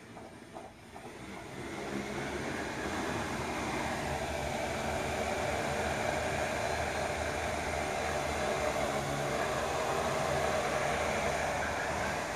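X8 Renegade multirotor drone's motors and propellers spinning up, rising over the first two seconds as it takes off, then a steady whir while it hovers.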